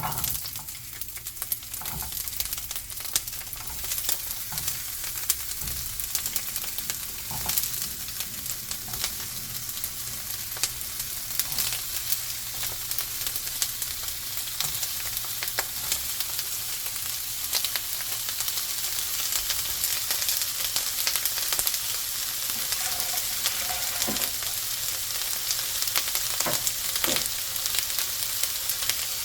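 Food sizzling in a hot frying pan as it is stirred, with scattered small clicks and taps from the spatula against the pan. The sizzle starts abruptly and stays steady throughout.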